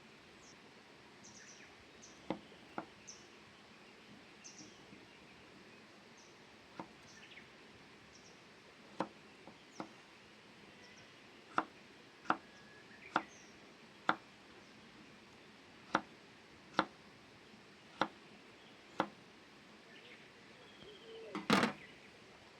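A series of about a dozen sharp knocks at irregular intervals, growing more frequent after about 11 seconds, with a louder, longer clatter near the end. Small birds chirp faintly in the background.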